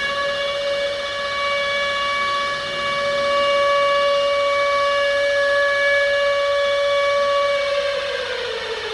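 Civil defense siren holding one steady tone, then winding down with a falling pitch about seven and a half seconds in. It is sounding as a warning of incoming nuclear missiles.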